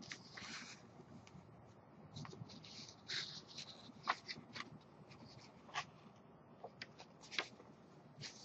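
Paper rustling with scattered light clicks and taps, about a dozen short sharp sounds, the loudest a little after four seconds in and again past seven seconds.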